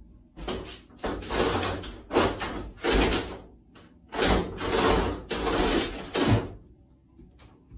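A closed interior door scraping and rattling in about seven short noisy bursts, stopping about six and a half seconds in.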